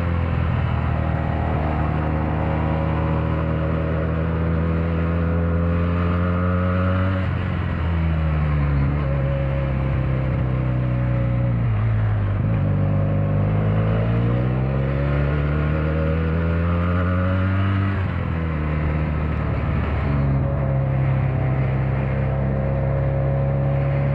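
Benelli 302 parallel-twin engine and exhaust under way, its note holding steady, then dropping sharply about seven seconds in, sinking low around twelve seconds and climbing back, with further shifts in pitch near the end.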